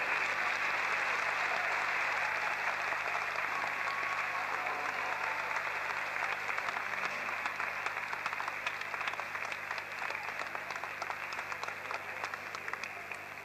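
Audience applauding in a large hall: dense clapping that gradually thins into separate claps and slowly fades.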